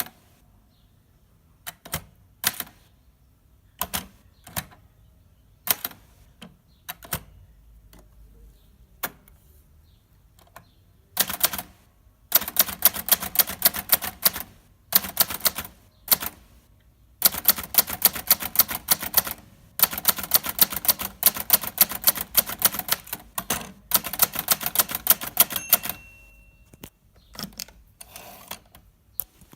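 Hermes 3000 portable typewriter being typed on. At first there are single, slow keystrokes a second or more apart; after about twelve seconds come fast runs of about ten key strikes a second with short pauses between them. Near the end a brief ring sounds, the carriage's margin bell.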